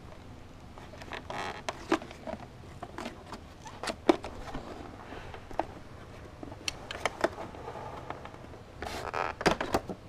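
Scattered plastic clicks, taps and handling rustle as a latch on a Sauber Excellence vacuum cleaner's plastic body is pressed, the filter cover opened and the exhaust filter pulled out, with a quicker run of knocks near the end.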